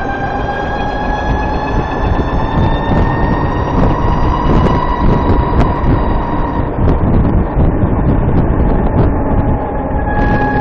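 Motorcycle riding under way, a steady rumble of engine and wind with a high-pitched whine over it that slowly rises in pitch, fades out a little past halfway and comes back near the end: the chirp the rider puts down to the VX1's transmission.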